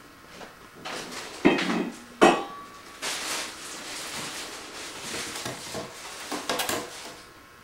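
A cardboard box knocked and scratched by a cat moving about inside it: two sharp knocks about a second and a half and two seconds in, then several seconds of scratching and rustling against the cardboard.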